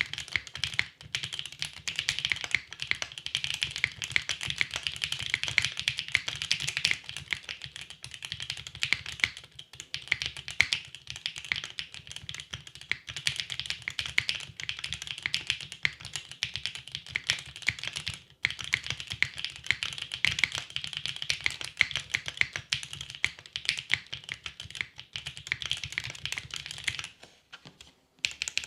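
Typing on a custom mechanical keyboard: a plateless Gok Lily R1 60% board with Gateron Dark Burgundy switches and GMK keycaps, fast, steady keystrokes with a couple of short pauses, stopping about a second before the end.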